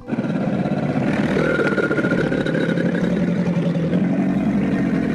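Crocodile growl, a steady low, rapidly pulsing rumble that resembles an engine running.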